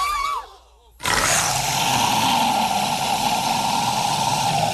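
Film soundtrack from a comic chestburster scene: a short wavering cry, a moment of silence, then a long, loud, harsh noise that fades out near the end.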